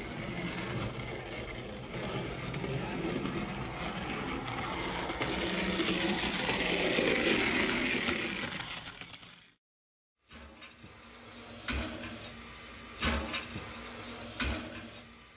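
OO-gauge model locomotive running along the layout's track: a steady whir and rattle of motor and wheels that swells as it passes close and then fades. After a brief dropout comes quieter running with a few sharp clicks.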